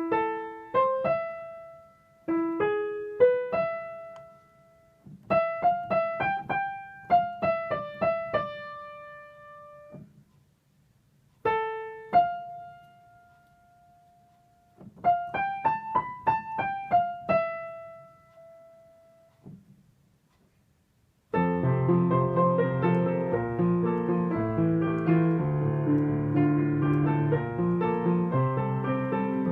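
Piano playing Shinkansen train chime melodies: several short phrases of single notes with pauses between them, then, about 21 seconds in, a fuller passage of chords played without a break.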